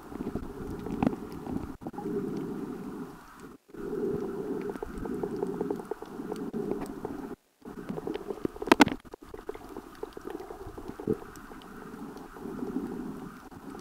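Muffled underwater noise from a camera submerged on a reef: a low rumble of moving water that swells and fades, with scattered faint clicks. A sharp knock comes a little before nine seconds in, and the sound cuts out completely twice for an instant.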